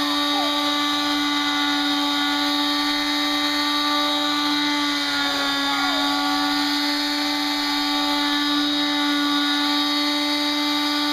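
Electric palm sander running steadily, a constant motor hum with a high whine.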